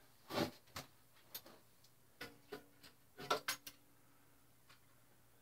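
Faint, irregular metallic clicks and clinks of a wrench and bolts as a shorty muffler is fitted to a Suzuki Hayabusa, with a small cluster of clicks a little past three seconds in.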